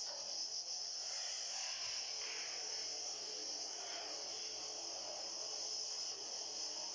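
CNC cutting machine running with a steady high-pitched whine over an even hiss.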